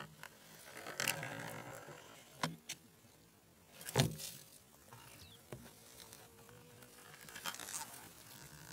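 Handling noise on a rifle with a phone mounted on its scope: a few scattered clicks and rustles, and one louder knock about four seconds in.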